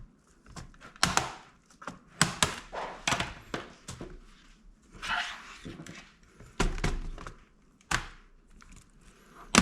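Flat-head screwdriver prying at the edge of an HP Pavilion G-series laptop keyboard: a string of sharp, irregular plastic clicks and knocks, with a brief scrape near the middle.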